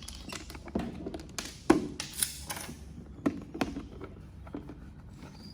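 A series of taps and knocks from a lightweight toolbox being handled, the loudest a sharp knock a little under two seconds in, with a short rustle just after.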